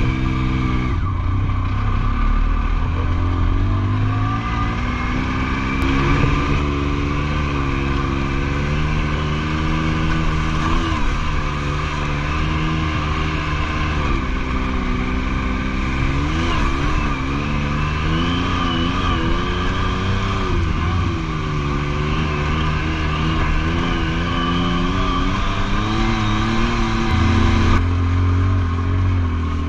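2016 Yamaha YXZ1000R's inline three-cylinder engine running as the side-by-side is driven, heard from inside the cab, its pitch rising and falling with the throttle. It drops to a lower, steadier note near the end.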